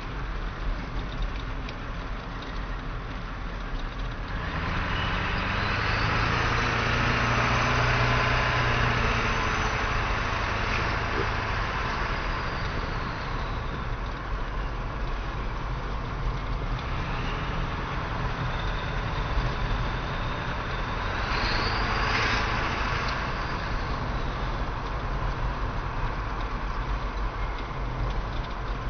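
Straight-piped 1997 Ford 7.3L PowerStroke V8 turbo diesel, muffler and catalytic converter removed, running at idle and then revved up and held for several seconds, the turbo whistle rising and falling with it. A second, shorter rev about three quarters of the way through brings the whistle up again before it settles back to idle.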